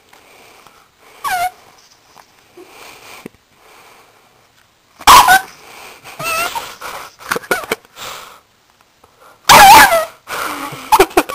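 Pug whining and barking: a short falling whine about a second in, then two loud, harsh barks, one about halfway through and one near the end, with smaller yips and whines between them.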